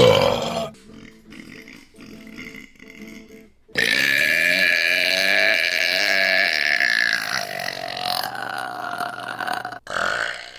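Women burping: a short loud burp right at the start, then one long drawn-out burp of about six seconds beginning about four seconds in, and a short one near the end.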